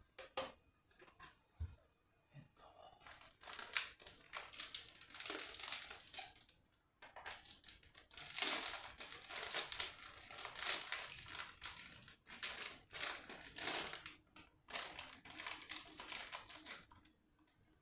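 Packaging crinkling as it is handled and worked open, in irregular crackly bursts from about three seconds in until near the end.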